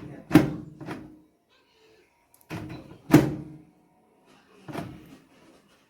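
Microwave's push-button door clunking open and shut: two loud thunks about three seconds apart, each with smaller clicks of the latch around it, and a softer clunk near the end.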